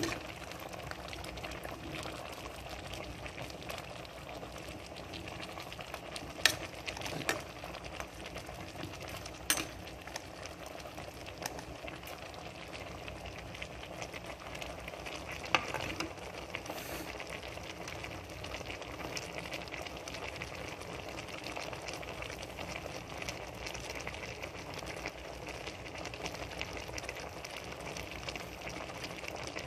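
Pot of red bean and fried tilapia broth simmering, a steady bubbling hiss. A metal ladle clicks against the pot a few times, about six, nine and fifteen seconds in.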